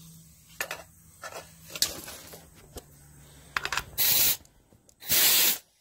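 Compressed-air hose being fitted to a leak-down tester's quick-connect inlet: a few clicks and knocks of metal fittings, then two short bursts of air hissing about a second apart, from the compressor line set to 100 PSI.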